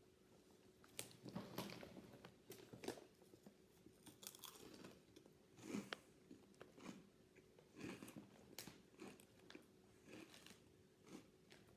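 Cheez-It Crunch crackers being bitten and chewed with sharp, irregular crunches, starting about a second in.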